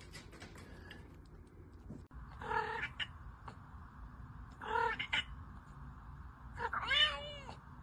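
Domestic cat meowing three times, a little over two seconds apart, the last call longer with its pitch rising and falling.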